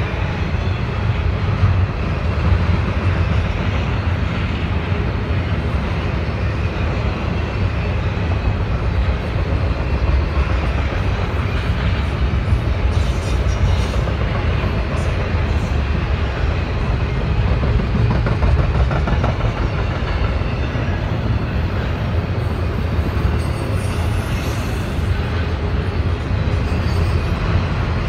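Double-stack intermodal freight train's container well cars rolling past, a steady low rumble of steel wheels on rail.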